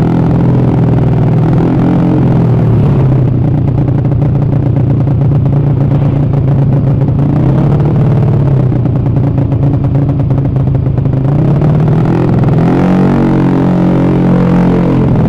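Honda BeAT carburettor scooter's single-cylinder four-stroke engine running steadily at a fast idle, the revs rising to a higher note about twelve seconds in.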